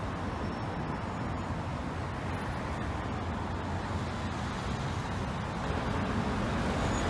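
Steady road traffic noise from cars and buses moving along a busy street, getting a little louder near the end.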